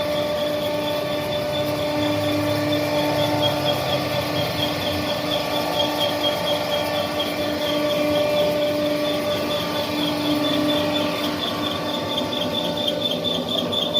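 Portable line boring machine running, its boring bar turning as the cutter bores out the bucket pivot bore of a PC400 excavator. A steady whine with a high squealing tone that pulses in quick even repeats.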